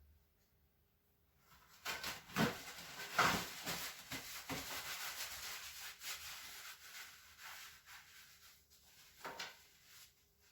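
Rubbing and rustling of a person's body and clothing shifting against a padded treatment table. It starts about two seconds in with a few scuffs, goes on for a few seconds and fades, with one more brief scuff near the end.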